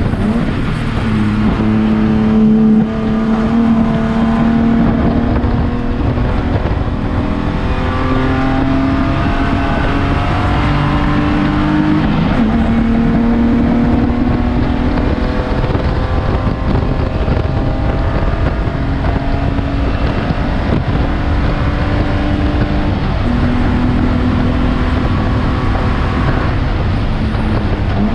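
BMW E36 Spec3 race car's straight-six engine under hard acceleration, its pitch climbing and dropping again and again through gear changes and braking, heard inside the stripped cabin over road and wind noise.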